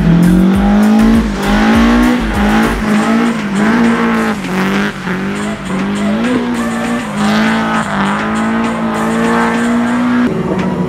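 Toyota Corolla DX estate's engine revving up and down repeatedly as it drifts, its tyres sliding on the wet track surface.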